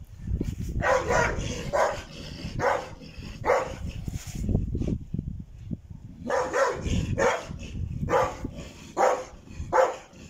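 A Caucasian shepherd dog barking repeatedly, about ten barks roughly a second apart with a pause of a couple of seconds near the middle: territorial barking at another dog walking on its ground.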